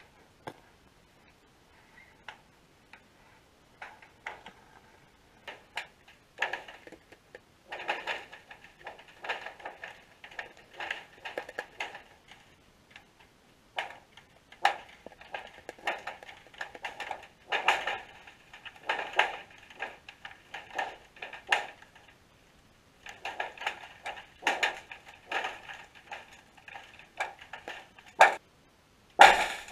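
Irregular clicking and knocking picked up by a GoPro sealed in its waterproof housing under the ice. The clicks are sparse at first and come in dense rattling clusters from about six seconds in, with one sharper knock near the end.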